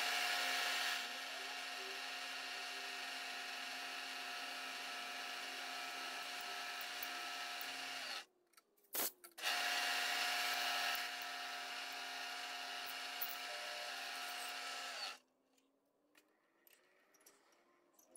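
Milling machine spindle running as a drill bit bores into a small metal slug, a steady hum with several even tones. It stops about eight seconds in, a click follows, then it runs again for about six seconds and shuts off.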